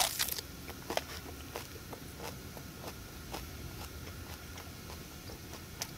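Mouth chewing a wrap of raw minari and grilled pork belly: a sharper crunch at the start, then faint, scattered crunching clicks.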